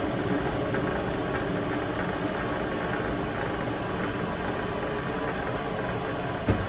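Vevor MX 400 mini lathe running with a parting tool cutting into the turning bar, a steady mechanical hum with some squeal. A single knock about six and a half seconds in.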